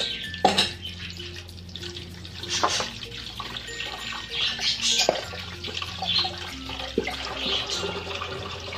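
Egg-and-flour battered chicken pieces deep-frying in oil, a steady sizzle with sharp pops and crackles now and then.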